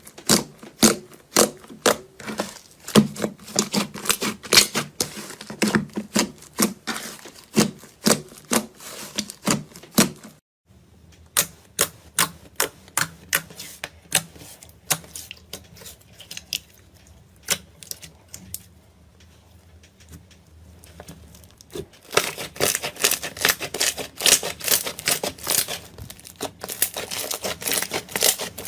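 Crunchy ASMR material being pressed and handled: rapid crisp clicks and crackles for about ten seconds, then sparser, quieter clicks over a low hum, then dense crackling again for the last six seconds or so.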